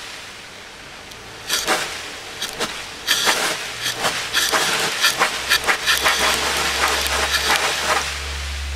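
Sandblasting gun firing abrasive at a moped frame in repeated bursts of hissing, rushing air that start and stop many times, most continuously in the second half. A low steady hum comes in near the end.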